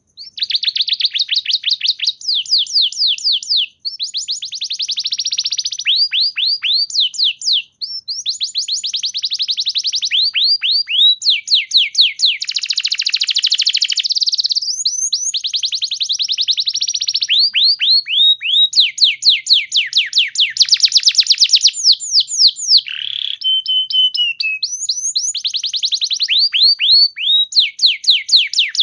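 Domestic canary singing a long, unbroken song of fast trills, each made of rapidly repeated down-sweeping notes, with a rolling buzzy passage partway through and a short held whistle about three quarters of the way in.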